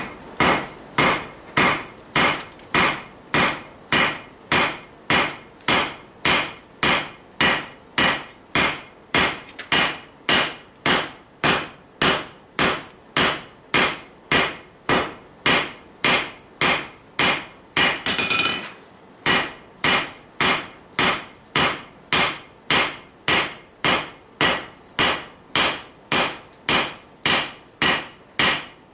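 Steady hand-hammer blows on hot steel over a cast-iron Vulcan 90-pound anvil, drawing out a knife blade, about two strikes a second. There is one short break with a scraping sound about two-thirds of the way through before the hammering resumes.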